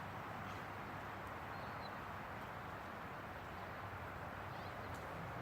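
Steady outdoor background hiss with no clear event, and a single faint bird chirp about two seconds in.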